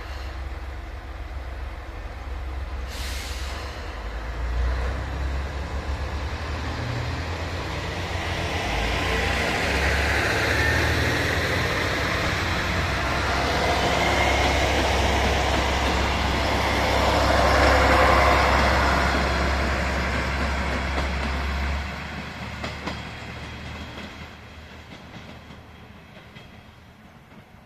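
Diesel multiple-unit train pulling out and passing close by. Its engines run with a steady low drone, and the running noise builds to a peak about two-thirds of the way through. The drone then drops away and the sound fades as the train moves off. A short hiss of air comes about three seconds in.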